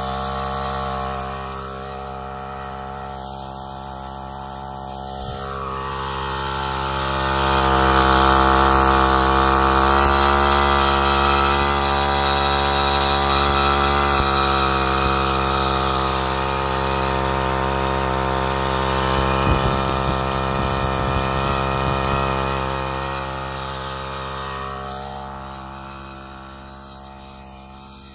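Komatsu G260 two-stroke brushcutter engine running steadily at speed, driving a 90 mm push pump through a gearbox. It grows louder a few seconds in and fades away over the last few seconds.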